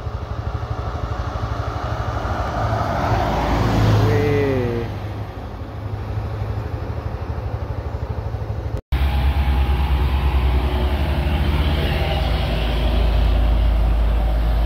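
Road traffic passing on a highway, with heavy engines running. One vehicle swells and fades about four seconds in, with a brief falling tone as it goes by. The sound drops out for an instant near nine seconds, then comes back as a louder, deep, steady engine drone.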